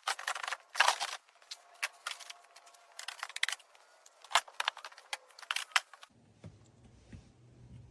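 Irregular clatter and sharp knocks of hard objects being handled and set down. About six seconds in it changes abruptly to a faint low hum.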